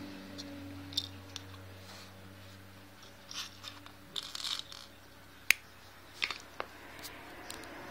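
Small plastic LEGO pieces being handled and set down: scattered clicks and rustling, with a sharp click about five and a half seconds in and a few more soon after. A low hum fades out over the first few seconds.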